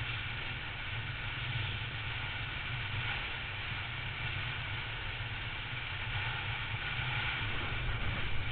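Triumph Tiger motorcycle cruising at a steady speed: an even, low engine note under rushing wind and road noise, growing slightly louder near the end.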